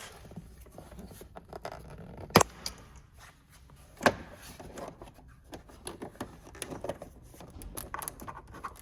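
Plastic trim fasteners on a Jeep Wrangler JK's interior rocker panel being popped off by hand: two sharp snaps a little under two seconds apart, among light clicking and rustling of plastic trim being handled.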